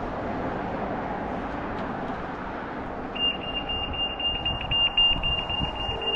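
Road traffic noise in a street. About halfway through, a steady high-pitched electronic beep tone starts and keeps sounding.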